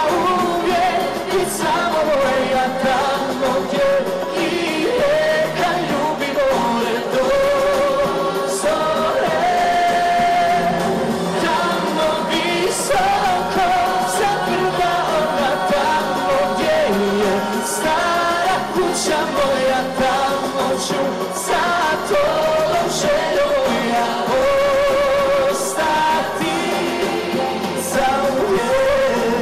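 A pop song performed live: a man and a girl singing a duet over a band with drums.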